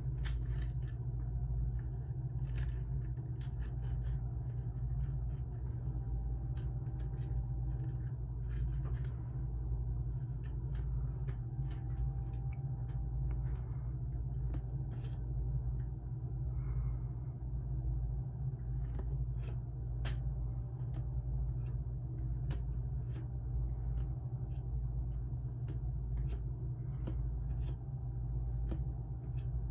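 A steady low hum with scattered light clicks and ticks from trading cards and packaging being handled.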